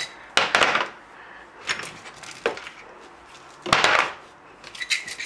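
Spice jars and small containers knocking and clattering against a plastic storage basket and each other as they are lifted out, in several separate clatters.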